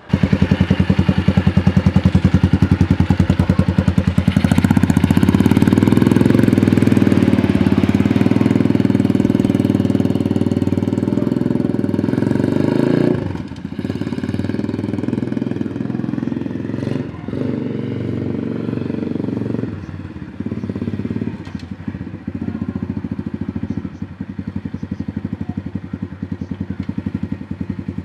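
Apollo 125cc pit bike's single-cylinder four-stroke engine running under throttle as it is ridden. Loud and steady at first, then it drops off suddenly about 13 seconds in and carries on quieter, its revs rising and falling with several short dips as the throttle is rolled off and on.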